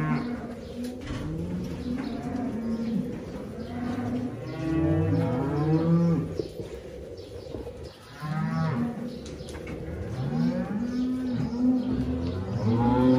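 A herd of dairy cows mooing, many calls overlapping one after another, with a steady faint hum underneath.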